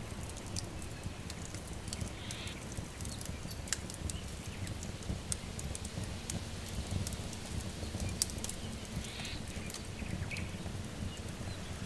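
Wood fire crackling with many irregular sharp pops over a low steady rumble, with a few short bird chirps.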